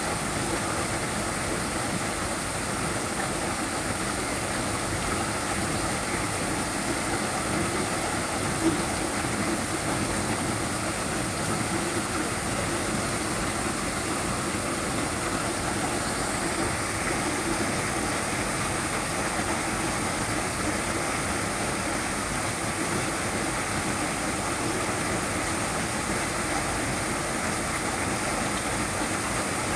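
Small waterfall: water falling and splashing with a steady, unbroken rush.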